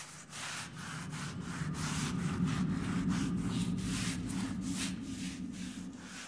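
Rhythmic rasping, scraping strokes, about three a second, over a low steady hum, growing a little louder toward the middle and easing off near the end.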